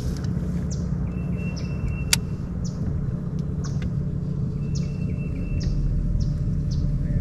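A steady low rumble, with faint short high chirps recurring about twice a second and a single sharp click about two seconds in.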